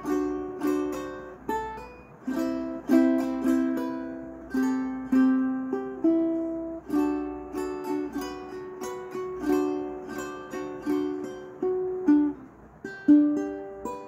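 aNueNue LOUT tenor ukulele played instrumentally, a plucked melody over chords at two to three notes a second. A final louder note near the end rings out and fades.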